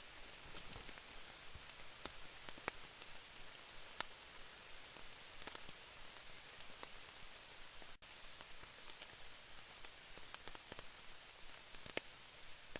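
Steady rain falling, with many separate drops landing as sharp ticks scattered through it.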